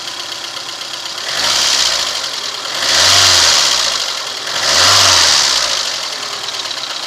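VAZ-2115 four-cylinder engine idling and revved up three times, each time falling back to idle. The owner reports an unexplained knock from it when the throttle is released or when driving without load.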